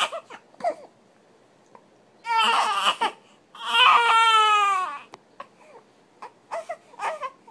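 Baby crying: a short wail about two seconds in, then a longer, slightly falling wail, followed by brief fussy whimpers near the end.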